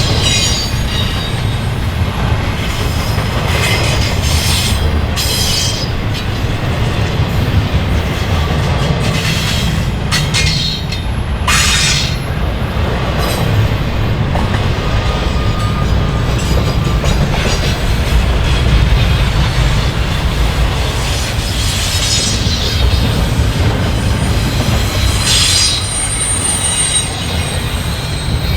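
CN freight train's cars rolling past in a steady, loud rumble, with several short high-pitched wheel squeals scattered through and a longer thin squeal near the end.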